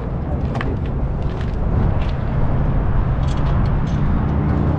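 An engine running steadily with a low, even rumble, with a few light clicks on top.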